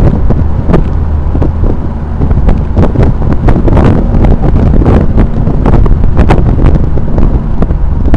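Twin-turbocharged 2004 Nissan 350Z roadster driving, its V6 giving a steady low rumble under heavy wind buffeting on the microphone.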